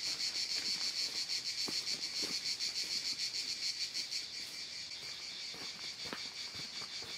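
A continuous high-pitched, fast-pulsing insect chorus, a little quieter after about four seconds, with a few faint footfalls on dry leaf litter.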